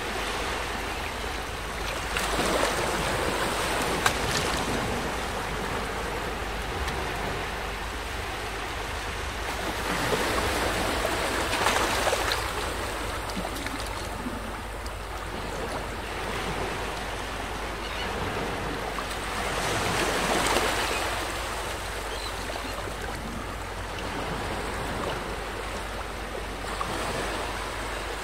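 Small waves washing up onto a sandy beach. The surf swells and eases every several seconds.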